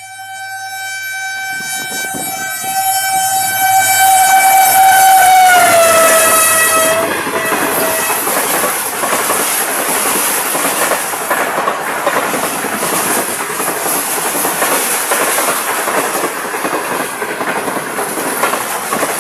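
Pakistan Railways HGMU-30 diesel-electric locomotive sounding one long horn as it comes through at over 100 km/h. The horn's pitch drops as the locomotive passes, about six seconds in, then comes the rush and clickety-clack of the passenger coaches going by, falling away at the very end.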